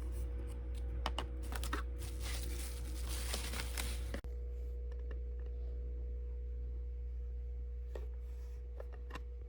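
Packaging handled by hand during unboxing: crinkling and tearing with quick clicks for about four seconds, cutting off abruptly, then a few scattered clicks. A steady low hum runs underneath.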